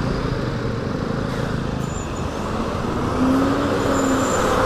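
Motorcycle riding through town traffic: steady engine and road noise with wind rushing on the microphone. A steady tone, lasting about a second, comes in a little past the middle.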